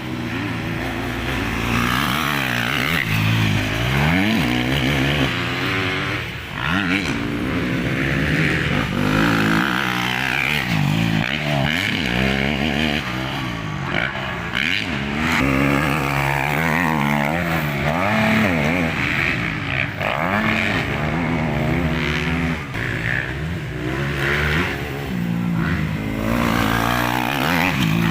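Several motocross bikes racing on a dirt track, their engines revving up and falling back again and again as they accelerate and shift, the pitches overlapping.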